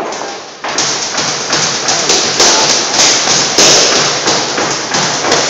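Boxing gloves hitting focus mitts in a fast run of punches, about four sharp slaps a second, after a short pause at the start.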